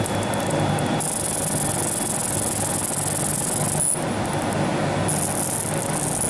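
Laser marking machine engraving plastic meter seals: a steady machine hum with a high-pitched whine that drops out about four seconds in and comes back about a second later.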